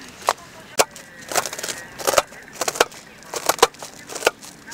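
Small knife chopping cabbage: about a dozen crisp cuts at an irregular pace.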